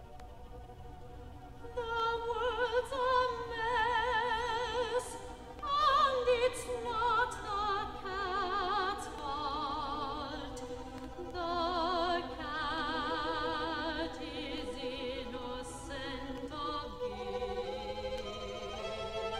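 Soprano singing with wide vibrato, accompanied by a small string ensemble; the voice enters about two seconds in after a quiet moment.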